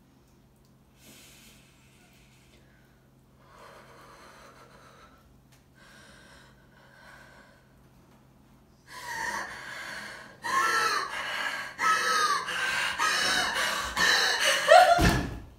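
A woman breathing: a few faint breaths, then from about nine seconds in loud, rapid gasping breaths, some with a voiced catch. A low thud comes near the end.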